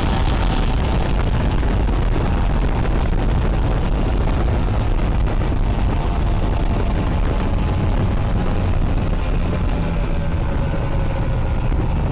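Steady wind buffeting and water rushing past the microphone of an action camera on an inflatable towed at speed behind a motorboat, with a faint engine drone running through it.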